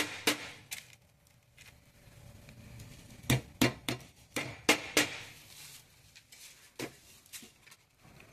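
Hammer striking small nails into a piassava broom's wooden head, fastening the fibres. There are sharp, separate blows: three near the start, a quick run of six around the middle, and two more near the end.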